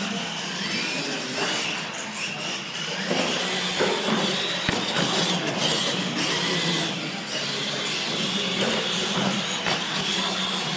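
Radio-controlled monster trucks racing across a concrete floor, their electric motors and gears giving a high whine that rises and falls again and again as the trucks accelerate and slow. A single short knock about four and a half seconds in.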